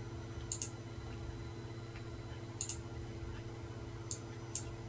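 Computer mouse clicking: a few sharp, separate clicks, some in quick press-and-release pairs, over a steady low electrical hum.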